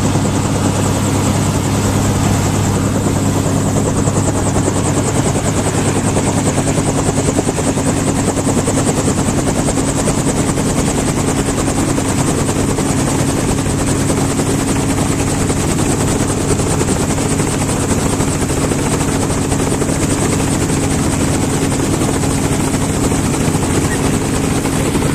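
Helicopter running steadily: a constant, loud drone of rotor and engine with a fast, even blade chop and a steady low hum.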